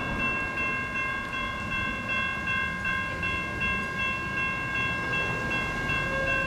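Electronic railroad crossing bells (a Safetran Type 2 and a GS Type 1 e-bell) ringing steadily over a low rumble while the gate arms rise, the crossing deactivating after the train has cleared.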